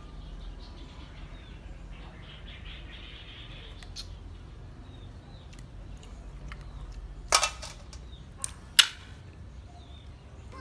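Sharp clacks from handling at the food: a quick cluster about seven seconds in, then two more over the next second and a half, the last the loudest. A low steady hum lies beneath, with faint short bird chirps now and then.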